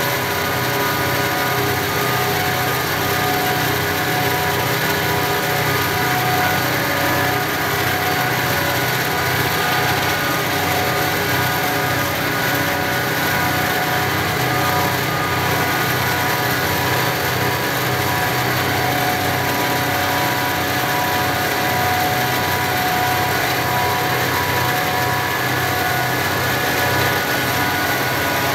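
Diesel locomotive engine running steadily under power, with an even low throb, heard while pacing alongside the moving train.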